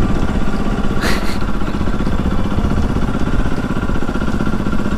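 Motorcycle engine running steadily at an even speed while riding, with a brief hiss about a second in.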